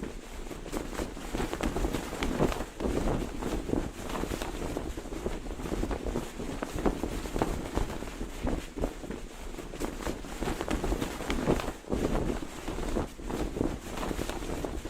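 Cloth flag flapping hard in the wind, with rapid irregular snaps and flutters over low wind rumble on the microphone.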